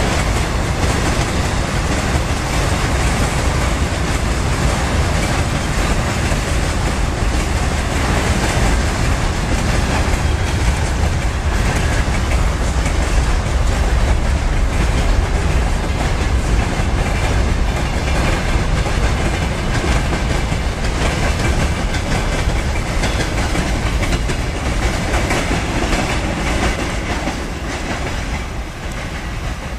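A freight train's wagons roll past close by: tank cars, then open gondola cars, with loud, steady wheel and rail noise. The noise drops a little near the end as the train's tail draws away.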